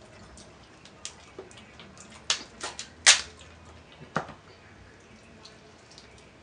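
Boiled snow crab legs being snapped and cracked apart by hand, a handful of sharp, wet cracks with the loudest about three seconds in.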